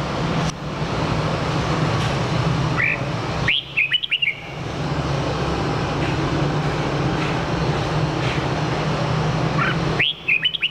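Red-whiskered bulbul singing two short bursts of quick, rising whistled notes, one about three and a half seconds in and one near the end, each with a single note just before it. A steady low background hum runs underneath.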